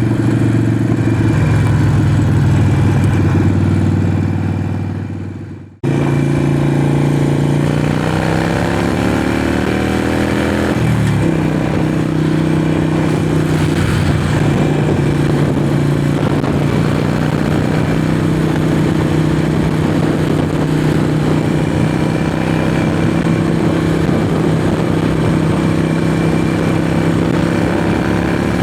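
Harley-Davidson Forty-Eight's air-cooled V-twin on Vance & Hines straight pipes, heard through a microphone inside the rider's helmet. The engine runs steadily, fades almost to nothing about five seconds in and cuts back in. It then rises in pitch as the bike accelerates, drops at a gear change about eleven seconds in, and holds steady at cruising speed.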